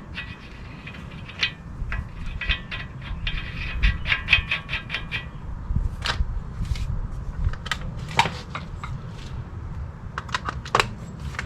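Scattered metallic clicks and clinks from hands working with metal parts and tools, with a quick run of light ringing clinks over the first few seconds and single sharper knocks later on.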